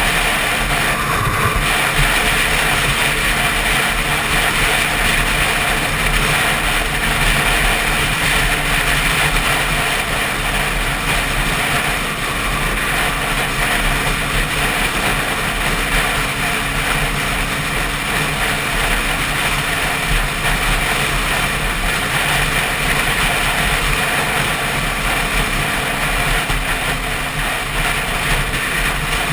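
Yamaha WR125's 125 cc single-cylinder four-stroke engine running steadily at road speed, mixed with steady wind rush on the microphone.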